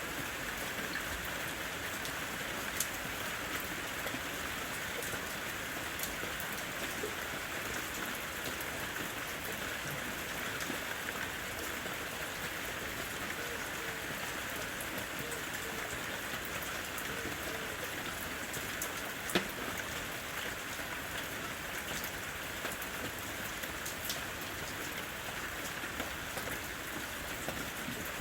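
Steady rain falling, an even hiss dotted with single louder drops; one drop hits sharper than the rest about two-thirds of the way through.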